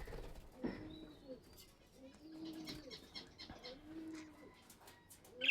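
Budgerigars chirping softly, with one sharp chirp near the end, over a dove cooing in low, arching notes about once a second.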